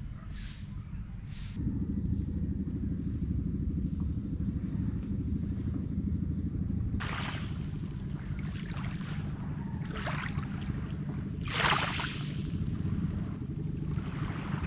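Small waves washing onto a pebbly shore, one wash every second or two starting about halfway in, the strongest near the end. A low wind rumble on the microphone runs underneath from about two seconds in, and faint high rhythmic pulses come before it.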